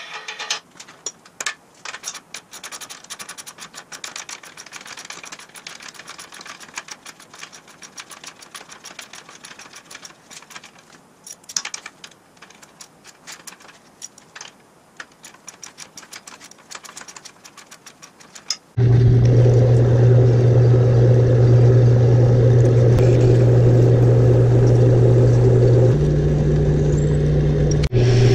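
Irregular clicks and metal clinks of hand tools as nuts are tightened on a friction shock's arm linkage. About two-thirds of the way through, this gives way abruptly to a metal lathe running with a loud, steady hum as a twist drill in the tailstock chuck bores into the spinning workpiece; the hum shifts in pitch briefly near the end.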